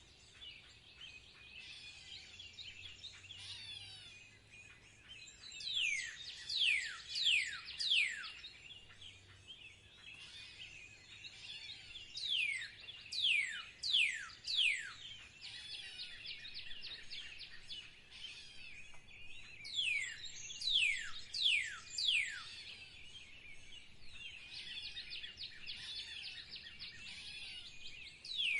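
Birdsong: a bird repeats a phrase of four or five loud, sharply falling whistled notes about every seven seconds, over a steady background of softer chirping from other birds.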